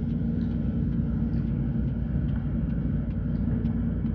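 A steady low machine hum, unchanging throughout, with faint soft clicks of someone eating marang fruit over it.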